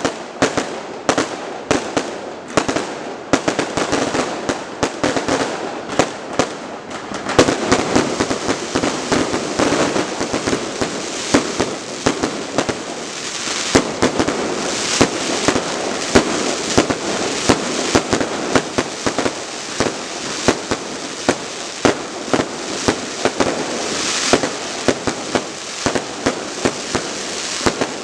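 Fireworks display: a dense run of sharp bangs, several a second, over a continuous din of further bursts.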